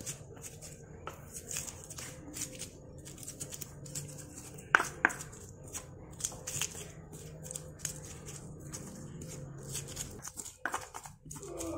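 Stone pestle crushing shallots, garlic and chillies on a stone cobek mortar: irregular crunches and knocks of stone on stone, with two louder knocks about five seconds in.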